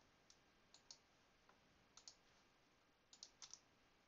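Faint computer mouse and keyboard clicks in small groups: a pair about two seconds in and a quick run of four or five about three seconds in, otherwise near silence.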